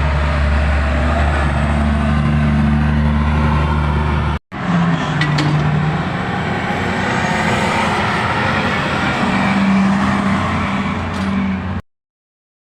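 Heavy mining machinery's large diesel engine running steadily. It breaks off briefly a little over four seconds in, then resumes, and cuts off suddenly near the end.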